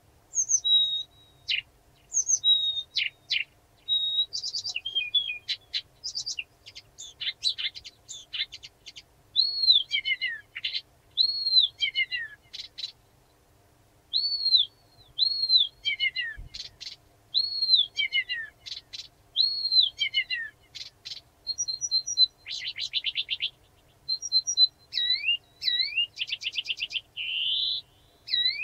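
Blyth's reed warbler singing a slow song of repeated motifs, each given two to four times: arched whistles that slide downward, buzzy rattles and sharp clicks, with a brief pause about halfway through.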